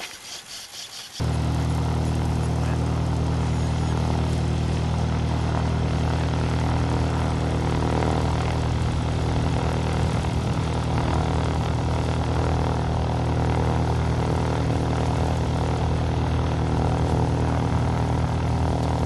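A motor running at a steady, unchanging pitch, starting abruptly about a second in; a few faint ticks come before it.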